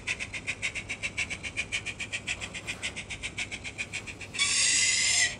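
Model steam locomotive sound decoder, a Zimo Quarry Hunslet sound project played through the engine's small onboard speaker, giving rapid steam chuffs at about nine a second as it runs. Near the end the chuffs give way to a loud, steady whistle blast lasting about a second.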